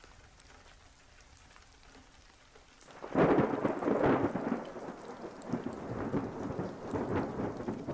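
Faint rain, then a roll of thunder breaks about three seconds in and rumbles on, slowly fading.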